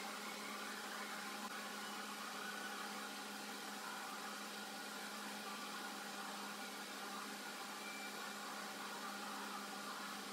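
Steady low hum with a hiss, a constant machine-like drone that does not change.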